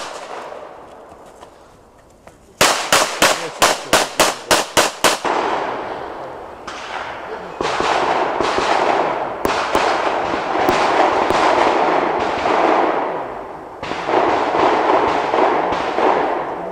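A handgun fired in a rapid string of about ten shots, roughly four a second, each crack with a short echo. A steady rushing noise follows through the second half.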